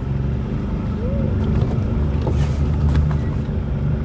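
Small boat's motor running steadily at low speed.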